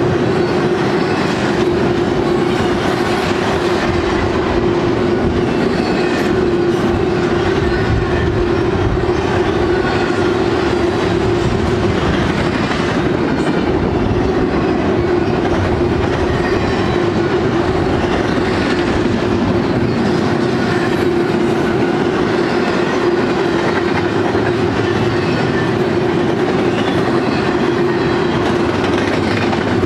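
Double-stack intermodal freight train's loaded well cars rolling past, steel wheels on rail making a loud, even rolling noise with a steady hum under it.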